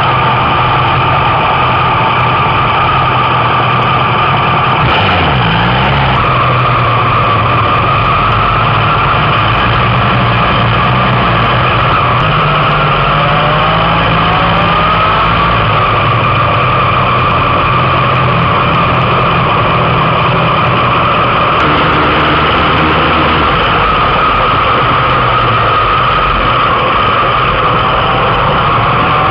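Motorcycle engines running with wind noise on an on-board microphone, the pitch rising slowly a couple of times as the bike accelerates.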